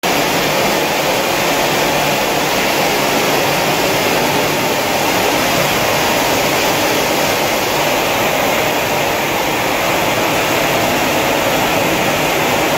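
COMAS optical colour sorter running while sorting mung beans: a loud, steady rushing noise that does not let up.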